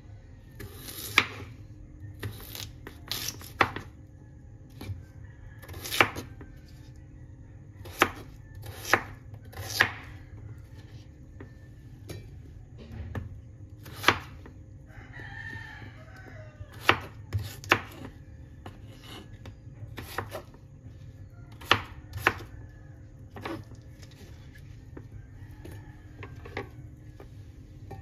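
Large kitchen knife chopping a peeled potato into chunks on a thick round wooden chopping board. The blade strikes the wood in sharp, irregular knocks about one to two seconds apart.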